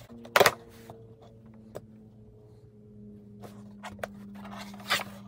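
Cardboard package being opened and handled: a sharp snap about half a second in, then faint scattered taps and rustles over a soft steady hum.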